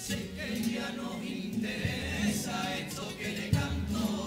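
Youth carnival comparsa singing in chorus, with Spanish guitars accompanying.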